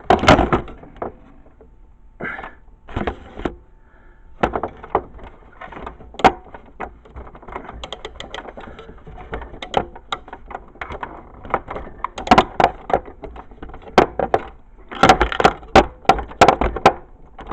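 Sharp metallic clicks and clanks of a socket wrench being worked on a nut on an old dehumidifier's motor, coming in irregular bursts, with the busiest runs near the end.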